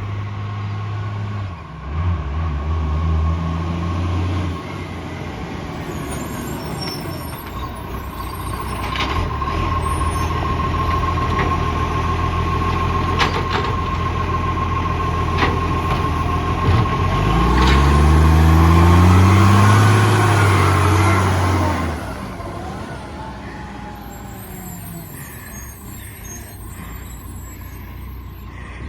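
Vehicle engine with an exhaust leak, idling, then revved up about 17 seconds in, held higher and louder for several seconds, and dropping back to idle near 22 seconds.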